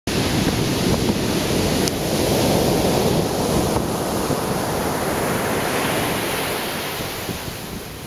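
Heavy surf from a hurricane swell breaking on a sandy beach, with a loud rushing wash that eases off over the last few seconds.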